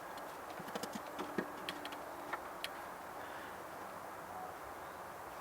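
A scatter of light, sharp clicks and taps in the first three seconds or so, over a steady low background noise.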